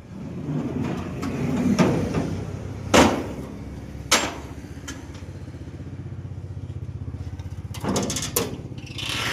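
An engine idling steadily with a fast even pulse, while sharp metal knocks sound twice, about three and four seconds in, and a quick run of clatters comes near the end.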